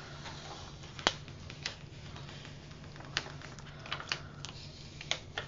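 Black heat transfer vinyl being weeded by hand, the waste peeling off its sticky carrier sheet in scattered sharp ticks and crackles, the loudest about a second in. A faint steady low hum sits underneath.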